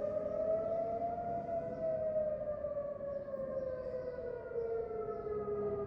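Civil-protection confinement siren sounding, the signal to shelter in place: a long wail of several tones at once that slides slowly down in pitch.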